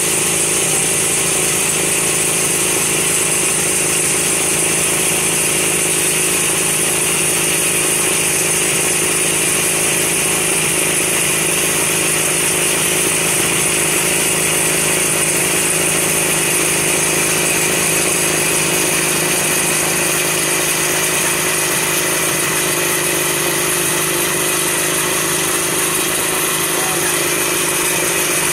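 Snowmobile engines running steadily, a loud even engine sound with a chainsaw-like edge that does not rise or fall.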